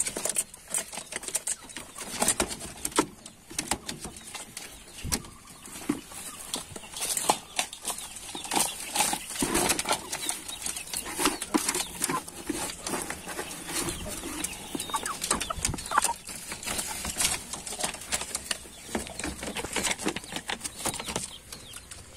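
Domestic chickens in a wooden coop: many sharp taps and rustles as they peck at feed and move about, with wing flapping and a few short clucks.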